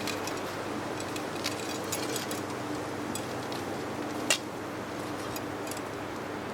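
Steady rushing noise of cold wind and river water, with a scatter of light clicks and one sharper click about four seconds in.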